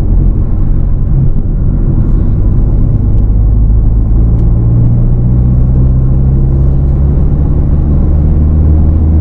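A car being driven along a road, heard from inside the cabin: a steady low drone of engine and road noise.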